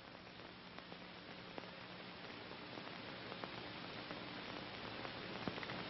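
Steady hiss with a faint low hum and a few scattered faint clicks, slowly growing louder: background noise of an old film soundtrack with no dialogue or effects.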